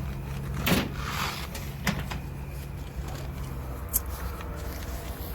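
Steady low hum with a few sharp clicks and knocks, the loudest about a second in, typical of hand work on the panels and parts of a packaged HVAC unit.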